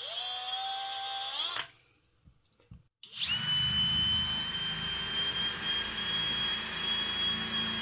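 Cordless drill with a countersink bit runs briefly and stops, its motor whine rising as it spins up. About a second later it runs again at a steady whine for several seconds, pressed into a pine block and cutting a countersink, with a low rumbling from the cut. The cheap bit wobbles and cuts poorly.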